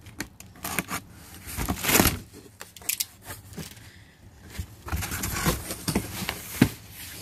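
Box cutter slitting packing tape along a cardboard box seam, then the box flaps being pulled open: a run of sharp scrapes, rips and cardboard rustles, loudest about two seconds in and again near the end.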